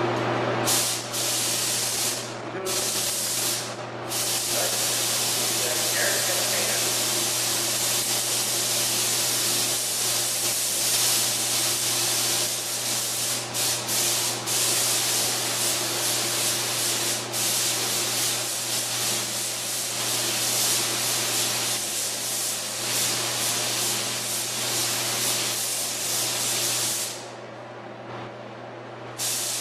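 Gravity-feed compressed-air spray gun hissing as it sprays paint onto a motorcycle fuel tank. It starts with a few short trigger bursts, then runs in long, almost unbroken passes, pauses for about two seconds near the end, and starts again just before it ends.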